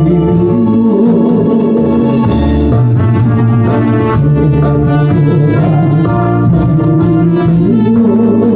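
Organ music: an electronic organ playing held chords that change every second or two, over a light steady beat.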